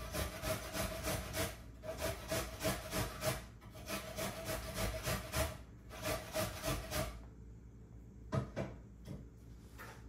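Rapid, even scraping or rubbing strokes, about five a second, in runs of a couple of seconds with brief pauses, stopping about seven seconds in; then two light knocks.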